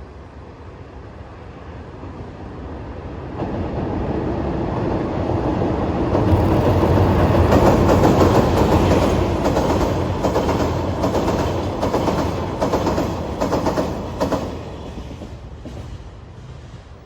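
Freight train passing close by, wheels clattering rhythmically over rail joints. It grows louder over the first few seconds, is loudest in the middle, then fades as the train recedes.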